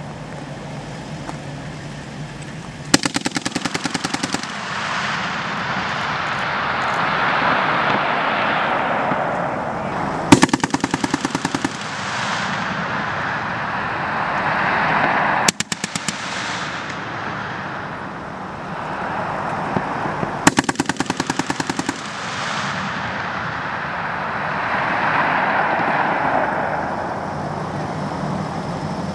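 Automatic weapons fire from the vehicles' machine guns: three rapid bursts of about a second and a half each, and a single shot about halfway through. Between the bursts the vehicles' running noise swells and fades.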